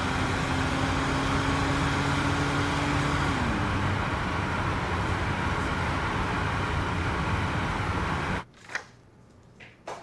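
Steady road and engine noise inside a moving car's cabin, with an engine note that drops in pitch about a third of the way in. It cuts off suddenly near the end, leaving a quiet room with a couple of faint clicks.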